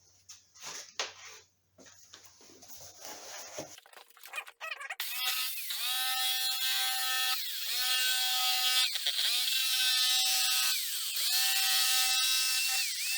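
Small high-speed power tool cutting the plastic front bumper of a 1997 Honda Civic. It is high-pitched and starts about five seconds in after some handling clicks. Its pitch sags and recovers four times as the blade loads up in the cut.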